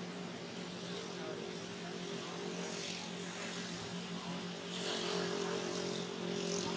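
Steady engine drone, a low hum of a few level tones, with faint hissy rustles about three and five seconds in.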